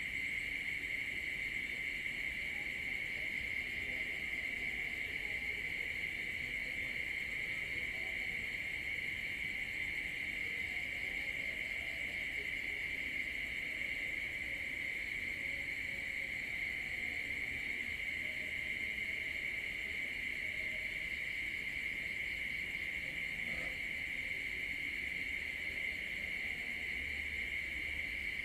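Night insects, likely crickets, chirring as a steady unbroken chorus.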